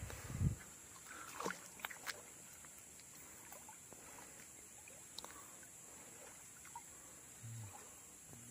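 Water sloshing and splashing around men wading waist-deep while they handle a gill net, with a low splash and a few short splashes in the first two seconds, then only faint lapping.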